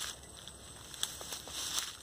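Rustling and light crackling of grass and brush as someone moves among the plants, with a few sharp clicks about a second in and a louder rustle near the end.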